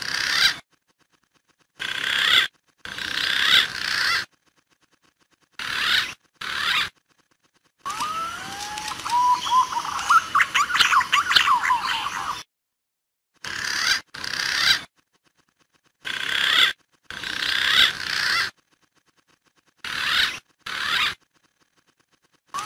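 Recorded green pigeon (punai) calls played as a bird lure: short bursts of calls broken by dead silence, with a longer run about eight seconds in that has rising whistled notes.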